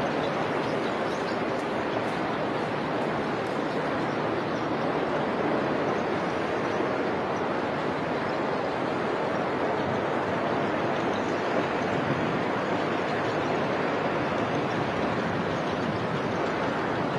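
Steady rushing noise of road traffic, even and unbroken, with no single car standing out.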